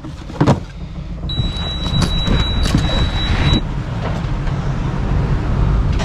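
A couple of sharp knocks from handling a wooden cabin locker, then steady wind and waves rushing past a sailboat in rough seas. A steady high-pitched tone sounds for about two seconds.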